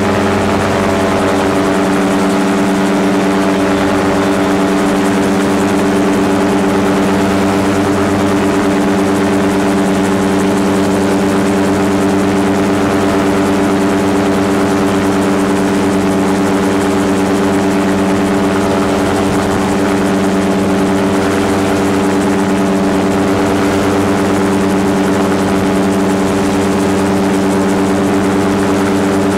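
Gyrocopter engine and pusher propeller running at takeoff power as the gyro rolls down the runway and lifts off, a loud steady drone that holds one pitch throughout.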